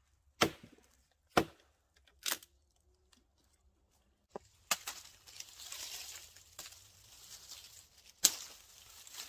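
Hultafors Hultan axe chopping into a fallen log: three sharp chops about a second apart. After a pause a steady hiss sets in, and near the end the axe strikes a branch once, sharply.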